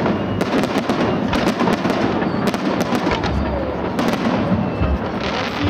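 Aerial fireworks going off in quick succession: a dense stream of sharp bangs and crackling shell bursts, with some deeper booms in the second half.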